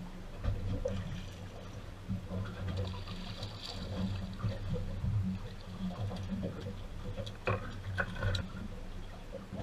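Water sloshing and lapping against a small fishing boat's hull over a steady low hum, with a few sharp knocks near the end.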